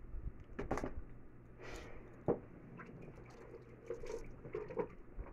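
Quiet handling noises: a few soft knocks and brief rustles, over a faint steady low hum.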